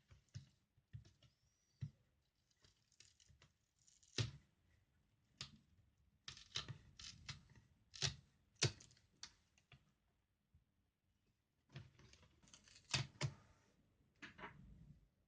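Irregular plastic clicks and snaps, faint, in two clusters with a short pause between them: the Dell Latitude 5480's snap-on screen bezel being pried loose with a plastic card.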